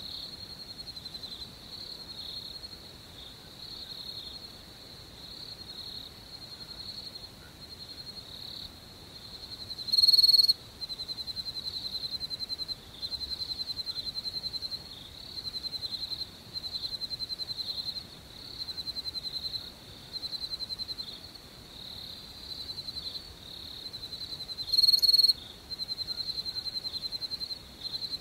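Crickets chirping in a steady high-pitched trill that pulses in bouts of a second or two. Twice, about 15 seconds apart, a much louder short call cuts in for about half a second.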